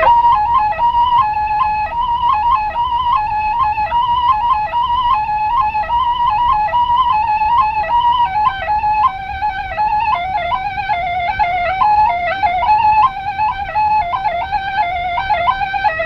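A flute playing a quick, ornamented folk melody, one line of notes with rapid turns and short leaps.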